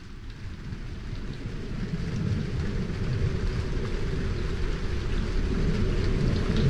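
Rain with a low rumble of thunder, growing gradually louder.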